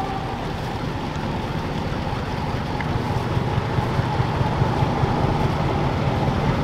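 Tour boat's engines running as it motors by, a low rumble that grows a little louder about halfway through.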